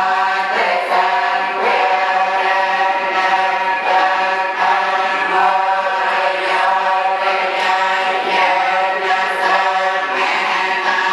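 Group of Cambodian Theravada Buddhist monks chanting a litany in unison, on a nearly unchanging pitch, with syllables following in a steady rhythm.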